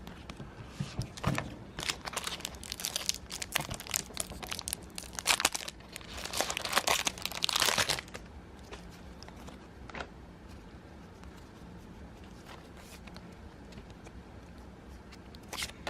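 Foil wrapper of a Pokémon trading card booster pack crinkling and being torn open, a dense crackle for the first half, loudest just before it stops about eight seconds in. Only faint handling sounds follow.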